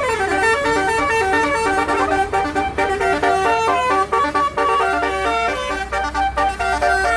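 Multi-tone musical air horn playing a tune: a quick downward swoop, then a fast run of stepped notes, with a low steady hum underneath.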